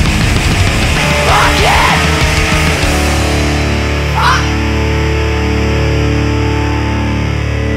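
Heavy, distorted mathcore recording: guitar and drums playing densely, then about three seconds in the drums stop and a distorted chord is held, ringing out.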